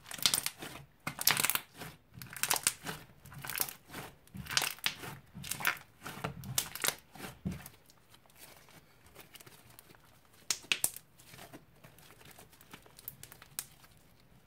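Blue slime squeezed and pressed by hand, crackling and popping densely as air pockets burst, for about seven and a half seconds. After that the crackles thin out to a few scattered pops as the slime is stretched.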